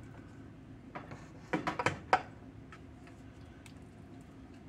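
Wooden spatula knocking and scraping against a stainless steel pot as thick dressing mixture is pushed out into a glass baking dish: a few sharp knocks, bunched together about one and a half to two seconds in, the loudest just after two seconds.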